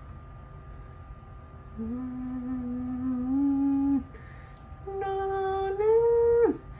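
A cartoon character's woman's voice drawing out long, wordless held vowels in mock whale-speak, heard from a TV: a lower drawn-out note, then a higher one that ends in a quick downward slide. A faint steady hum runs underneath.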